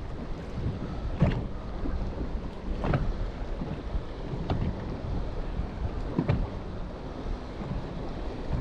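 Wind buffeting the microphone in a steady low rumble, with a few short sharp knocks or splashes about every second and a half.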